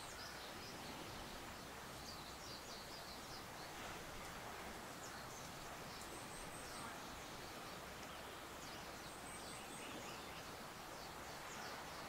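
Steady hiss of wind moving through tall grass, with clusters of faint, short, high chirps from small birds coming and going.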